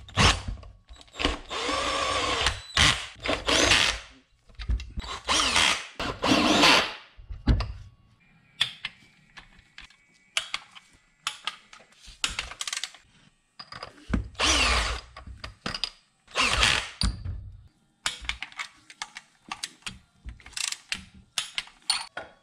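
A cordless electric ratchet runs bolts into the engine in several short whirring runs, its motor pitch rising and falling, then stopping. Through the rest there are many short clicks from a hand ratchet on a long extension as the bolts are drawn up.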